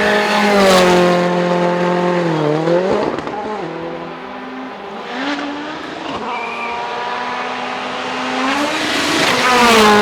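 Rally car engines running at high revs. The engine note drops away about two seconds in, then climbs again and holds. Near the end a car comes by close and loud, its pitch falling as it passes.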